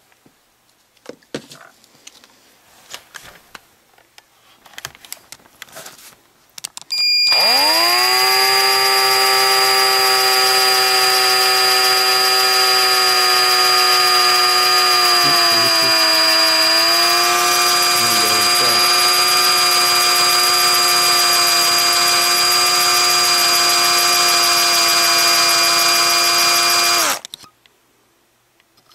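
A few light clicks on a workbench. About seven seconds in, a cordless drill spins up and runs steadily with a high whine for about twenty seconds while a small bit drills through a folding knife's handle. It slows slightly under load midway, then stops suddenly near the end.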